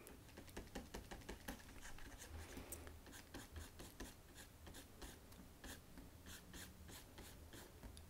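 Faint scratching and small irregular clicks of a pen stylus stroking across a graphics tablet while drawing rough brush strokes.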